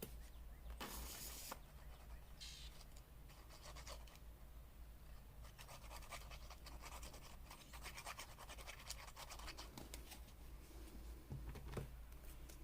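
Faint rustling, crackling and scratching of paper being handled and pressed down by hand, with a brief rustle about a second in and a run of small crackles through the middle.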